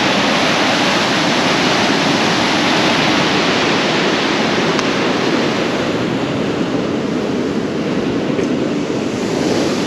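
Water from the Lesotho Highlands Water Project tunnel gushing out into a concrete canal: a steady, loud rush of churning white water. It grows softer about six seconds in and rises a little again near the end.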